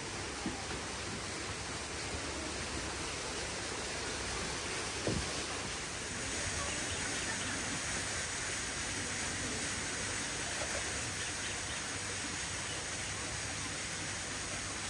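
Steady outdoor background noise, an even hiss, with a single short knock about five seconds in.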